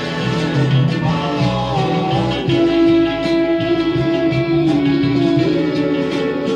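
Recorded soul song playing, an instrumental stretch between sung lines with sustained melodic tones over a steady backing.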